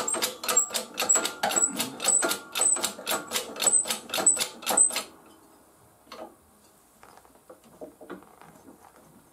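Rapid, even mechanical clicking at about four to five clicks a second, like a ratchet or small mechanism being worked, that stops abruptly about five seconds in. A few faint taps follow.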